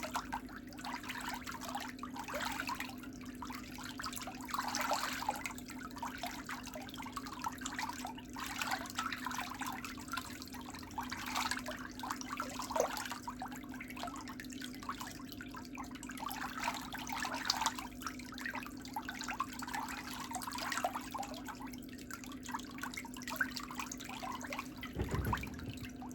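Water trickling and bubbling steadily over a constant low hum.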